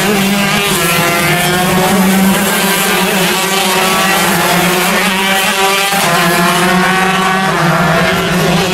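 Shifter kart engines racing on track, their pitch climbing in long rising sweeps as they accelerate and dropping back sharply about six seconds in before climbing again.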